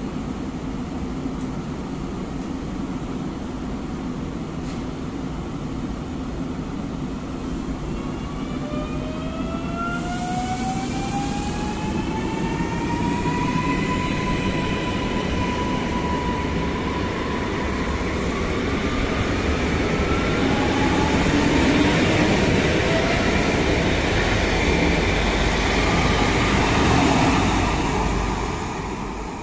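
A pair of coupled ED78 electric multiple units pulling away from a station. A low hum gives way, about eight seconds in, to a whine of several tones climbing in pitch together as the train speeds up. A short hiss comes about ten seconds in. The train grows louder as it passes, then fades near the end.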